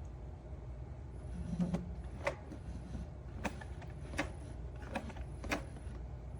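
Robot vacuum giving about six sharp knocks and clicks a second or so apart, over a low steady hum.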